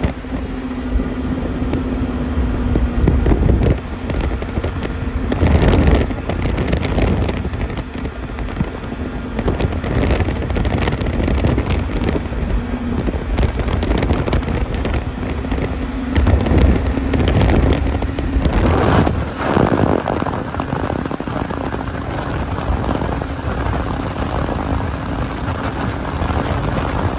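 Snowmobile engine running under way, with wind rushing over the microphone; the sound swells louder several times.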